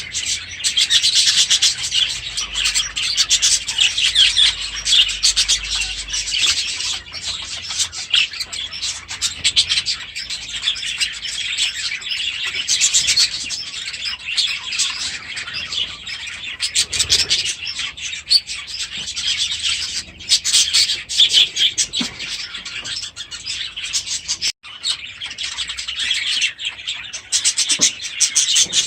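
A flock of budgerigars chattering and chirping continuously, many birds at once, with a brief break near the end.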